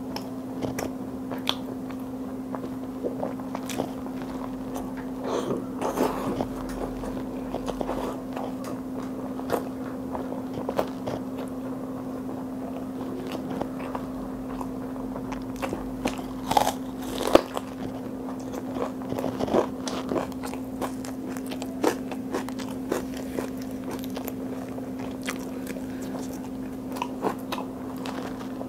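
Close-miked eating: wet chewing and sharp crunchy bites, including crisp bites into a raw red onion, with the loudest crunches a little past halfway. A steady low hum sits underneath.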